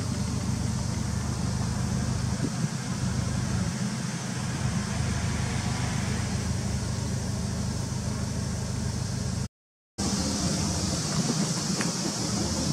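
Subaru Impreza WRX STi (GDB) turbocharged flat-four idling steadily with a low, even drone. The sound breaks off briefly about nine and a half seconds in, then the idle carries on heard at the STi muffler's tailpipe, with more hiss.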